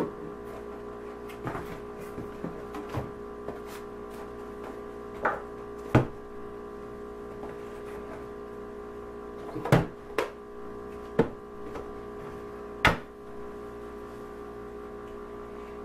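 Scattered knocks and clicks of items being handled inside a wooden kitchen cabinet, with a sharp click near the end as the cabinet door is shut, over soft steady background music.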